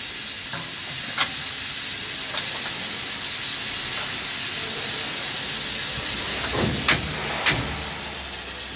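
Steady hiss of an Emmegi Comet CNC machining centre running. A few sharp clicks and knocks, one about a second in and two close together near the end, come as profiles are set into its clamps.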